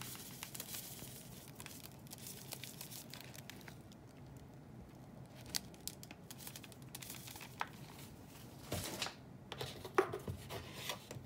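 Faint rustling and crinkling of packaging being handled, with scattered light clicks and a couple of louder crinkles near the end.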